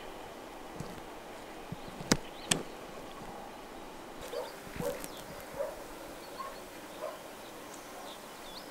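Two sharp knocks about half a second apart, then a string of short animal calls, several over the next few seconds.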